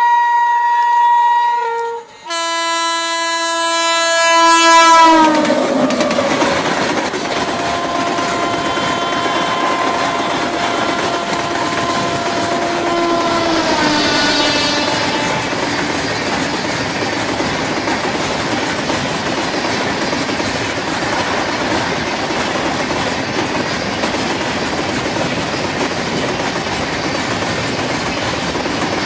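Diesel locomotive horn sounding two blasts, then a longer, fainter horn whose pitch drops about fourteen seconds in as the train passes. A long freight train then rolls by with a steady rumble and clickety-clack of wheels on rail joints.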